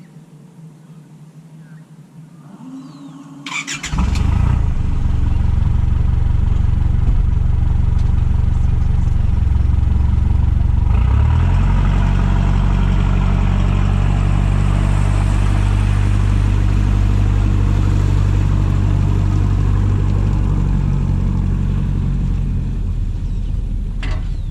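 Boat engine starting with a short clatter about four seconds in, then running loud and steady. It is throttled up about eleven seconds in and held at the higher speed.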